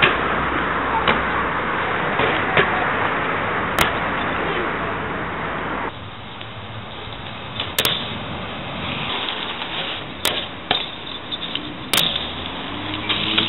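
BMX tyres rolling over pavement under a loud rush of wind on the microphone. About six seconds in the rush drops away, leaving quieter rolling broken by a few sharp knocks.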